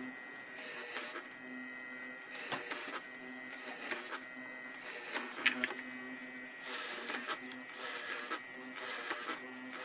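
Homemade drill press with a 775 DC motor running, a steady whir that pulses in strength about once a second.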